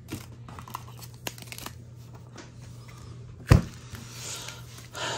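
Trading cards and a pack wrapper being handled: soft clicks and crinkling, with one sharp knock about three and a half seconds in.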